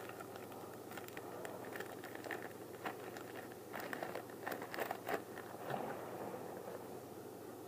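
Faint handling noise of a tissue being rubbed over a camera lens: soft rustling and scraping with scattered small clicks.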